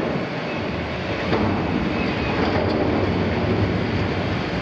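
Liebherr 974 demolition excavator's 400 kW diesel engine running under load while its demolition tool grinds and tears at steel tank plate, with continuous metal-on-metal scraping and clanking and a few short squeals.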